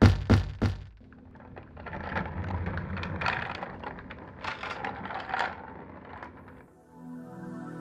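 Animation sound effects: an apple lands on the ground with three quick bouncing thuds, followed by several seconds of uneven rattling, rumbling noise as it rolls away. Soft ambient music starts near the end.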